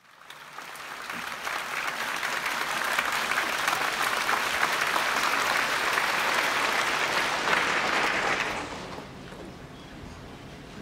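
Concert audience applauding, swelling over the first second or two and dying away about nine seconds in.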